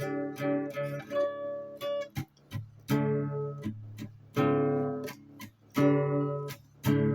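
Acoustic guitar strumming chords in short groups, each group ending in an abrupt stop before the next begins.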